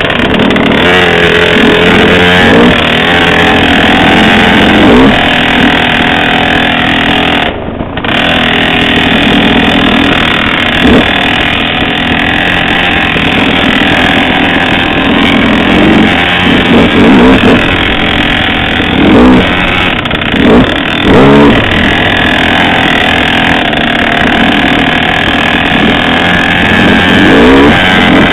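Dirt bike engine running on a trail, its pitch swinging up and down as the throttle is worked, with quick revs around the middle and again near the end.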